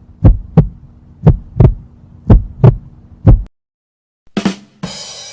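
Heartbeat sound effect: paired lub-dub thumps about once a second over a steady low hum, stopping about three and a half seconds in. Near the end a short burst is followed by a hissing noise that begins to fade.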